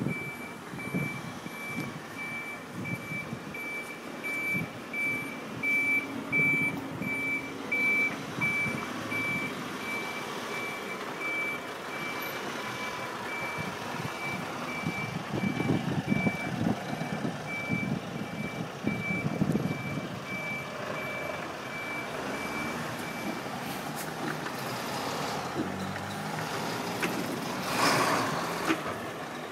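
Articulated lorry reversing: its high-pitched reversing alarm beeps steadily over the diesel engine, which swells in places as the lorry manoeuvres. The beeping stops about three-quarters of the way through, and a loud hiss of air follows near the end, typical of the air brakes.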